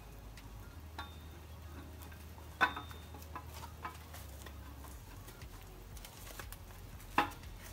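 A few sharp metallic clinks and knocks from metal tools and parts being handled, the loudest about two and a half seconds in and again near the end, over a faint low hum.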